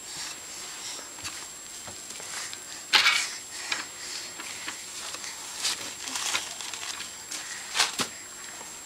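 Scattered rustles and light knocks of a toddler crawling and handling things on a low shelf, with a louder rustle about three seconds in and a sharp knock near the end.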